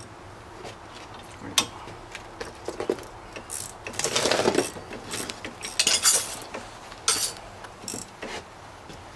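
Hand ratchet wrench clicking in short bursts as the bolts of a new front wheel hub bearing are cranked on, with scattered clinks of metal tools. The longest run of ratcheting comes about four seconds in.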